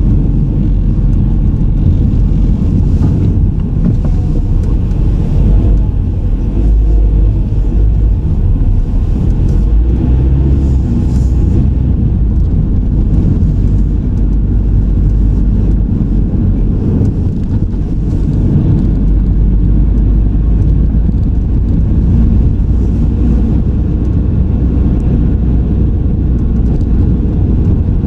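Car being driven, heard through a car-mounted camera: a steady low rumble of road and engine noise.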